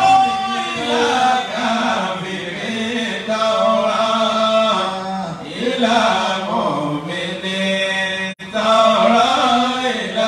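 A man's voice chanting an Islamic recitation into a microphone, melodic with long held notes. There is a brief break in the sound about eight seconds in.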